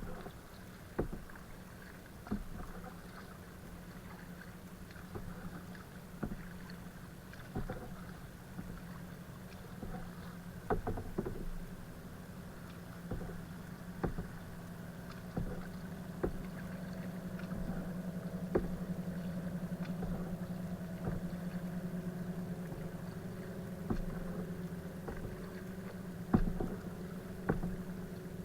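Kayak being paddled: paddle strokes and knocks on the hull come at irregular intervals, about every second or two. Under them runs a steady low hum that grows louder in the middle and then eases.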